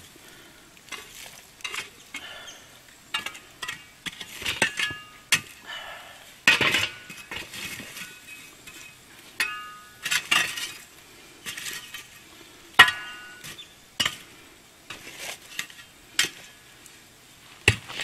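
A steel shovel scraping and scooping hot coals and ash, clinking and clanking against a cast-iron camp oven lid and the bricks around the fire in irregular strikes, some with a short metallic ring. The coals are being heaped onto the oven lid to heat it from above.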